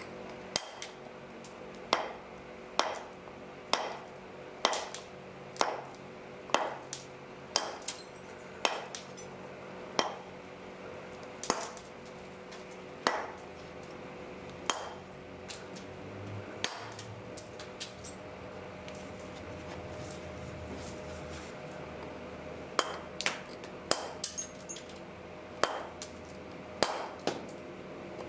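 Helgoland flint being knapped: a series of sharp clicking strikes, about one a second at first and then spaced more widely. The strikes stop for a few seconds past the middle and resume as quicker clusters near the end.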